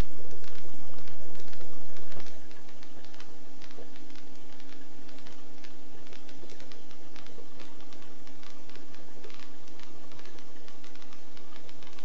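Helicopter cockpit noise during the descent to land: the engine and rotor drone with steady tones and a constant rush, dotted with many faint rapid clicks. The level drops slightly about two seconds in.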